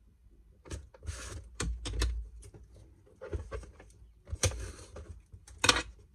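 Brown adhesive tape being pulled off its roll and cut with scissors while the cardboard box is handled. Short sharp clicks and rustles, with two longer noisy pulls of tape, about a second in and again past four seconds.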